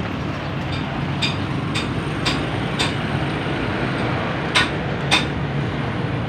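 Steady traffic and workshop background noise, with several sharp clicks; the two loudest come near the end.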